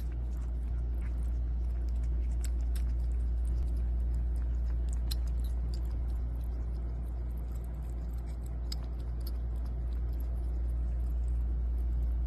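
A kitten lapping water from a glass bowl: many small, irregular wet clicks, over a loud steady low hum.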